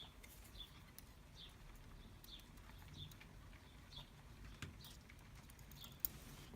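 Near-quiet room with faint short high chirps repeating about once a second, like a small bird calling in the background. A few light clicks of small lock springs and pins being handled, the sharpest near the end.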